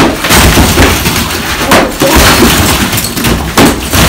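Sledgehammer smashing the brick base of a chimney: three heavy blows roughly two seconds apart, with brick and mortar breaking and tumbling down in between.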